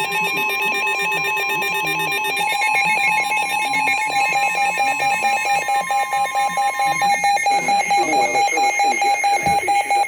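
NOAA Weather Radio warning alarm tone holding steady, layered with a rapidly pulsing electronic alert beep, signalling the start of a tornado warning broadcast. The steady tone stops about seven seconds in, and a voice begins under the pulsing beeps near the end.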